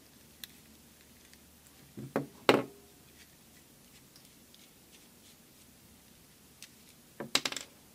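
Small clicks and knocks from handling a 12-volt accessory plug as its metal tip cap is unscrewed by hand to get at the fuse. There is a faint click early, two sharper clicks a little after two seconds in, and a short clatter of clicks near the end.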